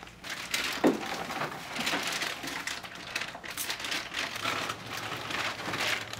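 A plastic shopping bag crinkling and rustling as it is handled and carried, with one sharper knock about a second in.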